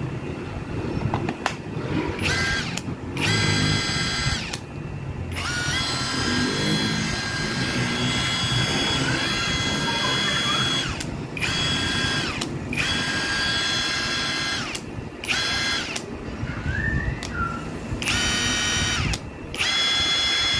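Ingco 20V brushless cordless impact wrench run free with no load in a series of trigger pulls. The motor whines up to speed and winds down each time, in about eight runs of under a second to several seconds, with the pitch shifting during the longest run in the middle.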